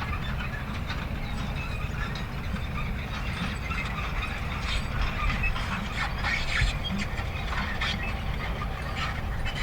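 Manure spreader running: a steady low rumble under irregular rattling and clanking from its moving mechanism, busiest around the middle.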